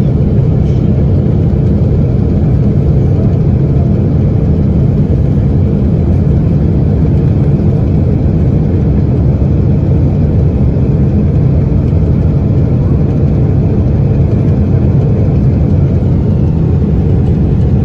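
Airliner jet engine that has failed in flight and is burning, its cowling torn off, heard from inside the cabin as a loud, steady low rumble with a constant drone.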